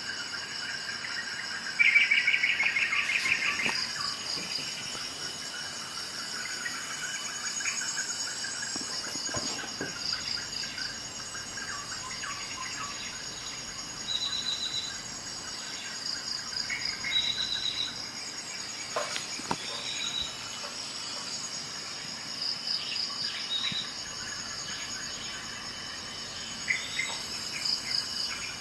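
Steady high-pitched insect chirring throughout, with bird calls over it: a loud trill about two seconds in, and short high whistled notes later on. A few faint clicks.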